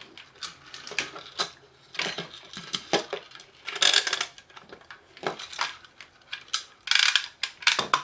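Plastic toy handcuffs being snapped onto wrists and handled: a run of sharp clicks and clatter on a hard tabletop, with louder bursts of rattling about two, four and seven seconds in.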